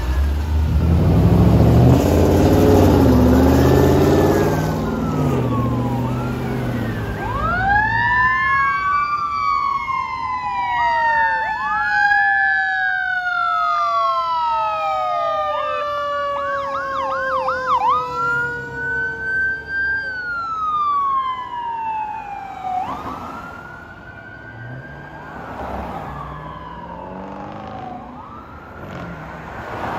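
Sirens on a fire engine and an ambulance responding together. Several wails rise and fall over one another, with a brief fast yelp in the middle, then slide lower and fade as the rigs pass and move away. A loud low rumble fills the first several seconds.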